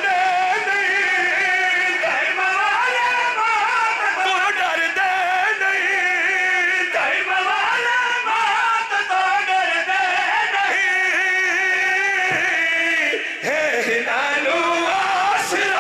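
A man singing a long, wavering, chant-like recitation into a microphone, carried over a loudspeaker system, with a brief break near the end.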